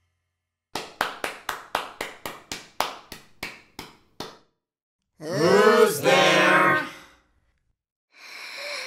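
Sparse hand claps, about four a second, trailing off after about four seconds. A voice follows for about two seconds, then a breathy exhale near the end.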